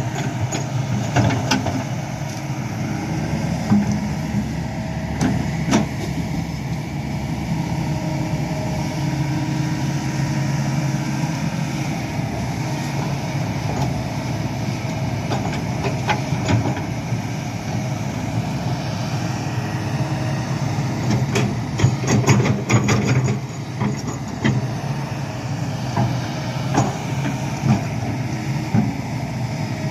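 Hydraulic excavator's diesel engine running steadily, with scattered clanks and knocks, thickest about two-thirds of the way through.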